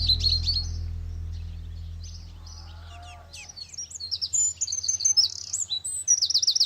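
Birds chirping and twittering in quick short notes, growing busier and louder in the second half, while background music dies away over the first few seconds.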